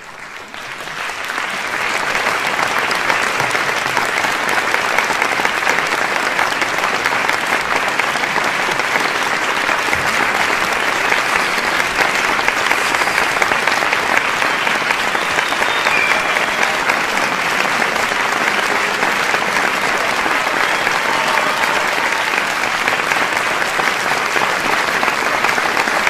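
Large crowd applauding and cheering. It swells up over the first two seconds, then holds as a steady, dense wash of clapping.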